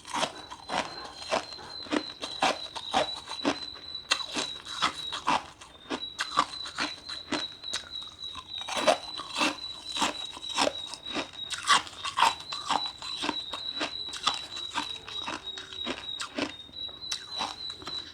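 Ice being chewed, a long run of sharp crunches at a few a second, with a steady high thin tone behind it.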